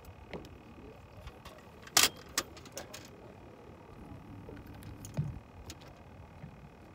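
Fishing gear and boat being handled while a fish is landed: scattered clicks and knocks, the loudest a sharp knock about two seconds in.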